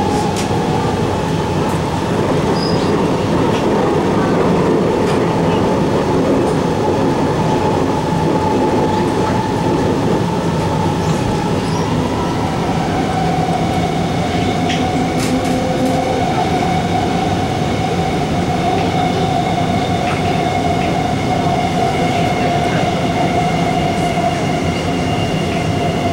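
Inside an SMRT R151 Alstom Movia metro car running at speed: a steady rumble of wheels on rail with a held whine from the Alstom MITRAC traction equipment. Thinner, higher tones join about halfway, along with a few faint clicks.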